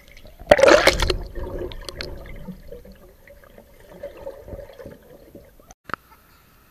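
Muffled rush of a splash and churning bubbles heard underwater in a swimming pool, loudest from about half a second to a second in, then a lower swirl of water that fades away. A short click follows near the end.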